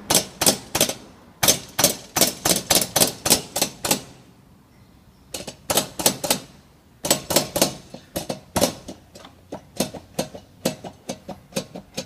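Loose front panel of a Ford Ka knocking as it is shaken back and forth by hand, in fast runs of sharp clacks about four to five a second, with two short pauses. The front end's bolts have worked loose, letting the whole panel move.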